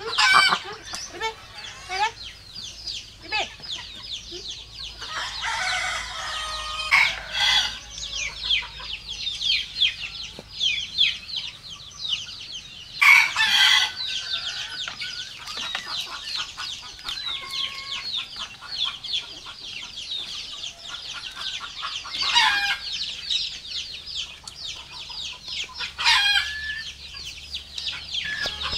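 A flock of chickens clucking and calling without a break, with a rooster crowing loudly several times over it.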